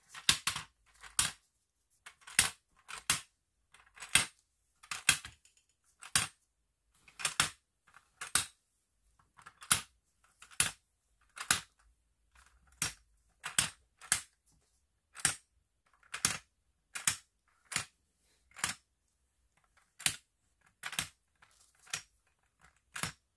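Translucent plastic tetromino pieces dropped one after another into a wooden-framed clear acrylic Tetris puzzle, each landing on the stack with a sharp plastic clack. The clacks come about once a second, some as a quick double click as a piece settles.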